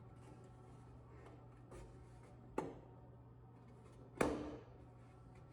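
Knocks and clicks as a part is tried on and fitted to a fan-coil unit's blower motor assembly. There is a faint click, then a sharp knock, then a louder knock about four seconds in that rings briefly, all over a steady low hum.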